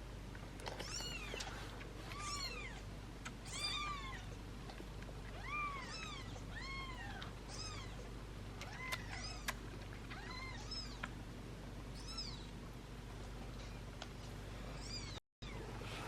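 Young kittens mewing again and again in short, high calls that rise and fall in pitch, sometimes overlapping. The sound cuts out briefly near the end.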